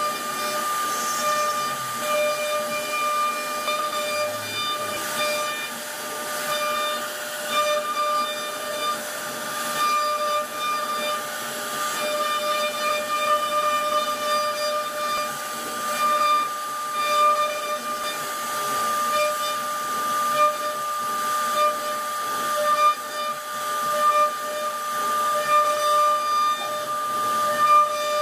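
CNC router spindle carving a wooden door panel: a steady high whine with a hiss from the bit cutting the wood, rising and dipping slightly in loudness as it works.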